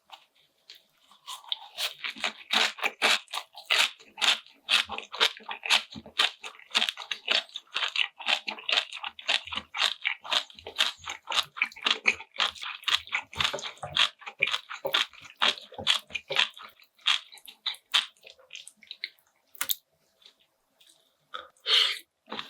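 A person chewing crunchy food in quick, continuous crunching bites that start about two seconds in and thin out near the end.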